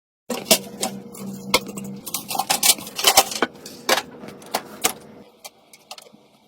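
Irregular sharp clicks and light clinks of small hard parts being handled during a PC build, with a low steady hum under the first two seconds. The clicks thin out and grow fainter after about five seconds.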